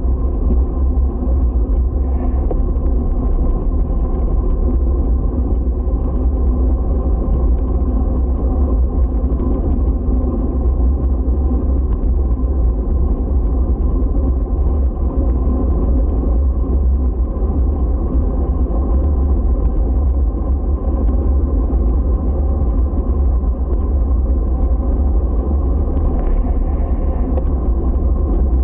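Loud, steady low rumble with no distinct events, like wind or road noise on a moving recorder.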